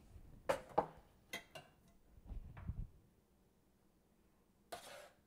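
Faint clinks of a metal ladle against a stainless saucepan and glass bowl as tomato sauce is scooped up and spooned onto pasta, with a few soft low knocks, then a short soft rush of noise near the end.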